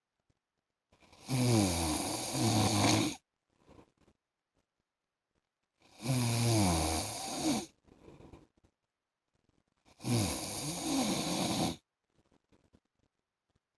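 A man snoring: three long snores, each about two seconds, coming roughly every four to four and a half seconds, with quiet breaths between them.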